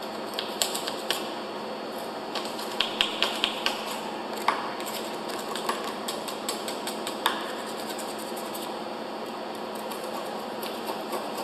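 Stiff putty knife scraping and chipping hardened concrete buildup off a concrete pump piston held in a vise, the steel blade clicking and scraping irregularly on the metal. A quick run of ticks comes about two and a half seconds in, and a few sharper clicks follow.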